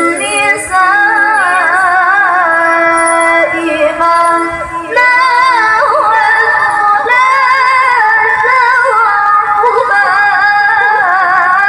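A qori'ah, a female Quran reciter, chanting melodic recitation into a handheld microphone: long held notes whose pitch wavers and turns in ornaments, with two short breaks, near the start and about four and a half seconds in.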